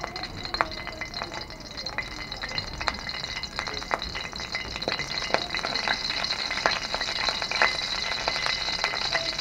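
A teaspoon of oil heating in a hot karahi, crackling with many small, sharp pops over a light hiss, growing a little louder as it heats.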